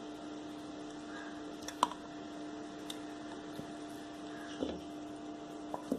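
Raw chicken pieces being put into a bowl: a few light knocks and taps, the sharpest a little before two seconds in, over a steady low hum.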